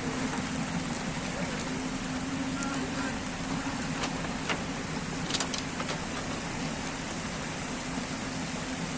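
Rain falling while an excavator's engine runs steadily, with a few sharp clicks near the middle, the loudest about five and a half seconds in.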